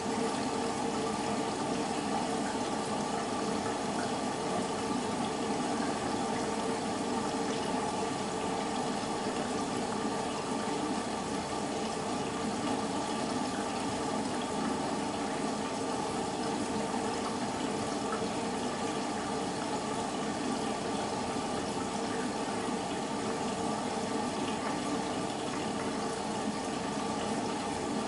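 BEKO WMB 51441 washing machine with water rushing steadily through it: a constant hiss with a steady hum underneath and no drum rhythm.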